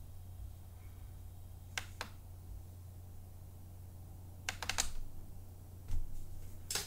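Sharp clicks of computer input at a desk: a pair about two seconds in, a quick run of several near the five-second mark, and another near the end, over a steady low hum.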